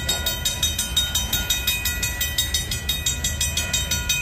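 Lumber-loaded freight cars rolling through a grade crossing, their wheels on the rails making a steady low rumble. Over it the crossing's warning bell rings in rapid, even strokes.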